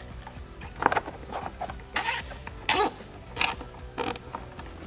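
Plastic zip tie being ratcheted tight around a wiring harness: five short zips, the first, weaker one about a second in and the rest coming about every two-thirds of a second.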